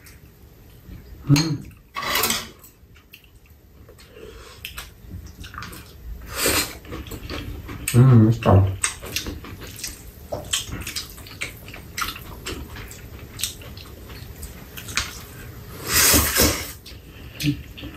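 Eating at a table: metal chopsticks and spoons clicking and scraping against bowls, with short slurps of glass noodles. The loudest is a longer slurp of noodles near the end.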